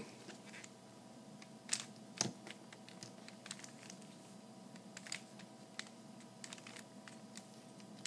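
Plastic 3x3 Rubik's cube being turned by hand through an algorithm: a series of light, quick clicks and clacks as the layers snap round, with two louder clacks about two seconds in.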